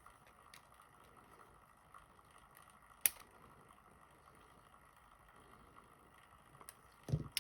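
Snap ring pliers working at a C-clip on a lock plug: faint scattered metal ticks, one sharp click about three seconds in, and a short low knock near the end, as the pliers slip off the clip.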